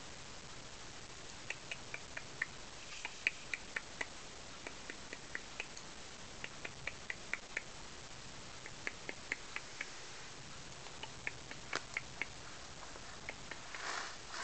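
Four-week-old Ocicat kittens playing, heard as faint, very short high ticks or squeaks in quick runs of about five with pauses between, and a soft rustling burst near the end.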